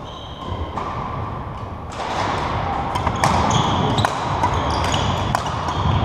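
Badminton rackets striking a shuttlecock with sharp, irregular clicks during a rally, with shoes squeaking on the wooden court floor. It is heard in a large, echoing sports hall whose background noise gets louder about two seconds in.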